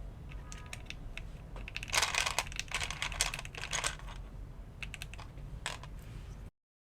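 Typing on an AKKO M1W mechanical keyboard: a string of key clacks, densest and fastest in the middle and sparser afterwards. The sound cuts off abruptly near the end.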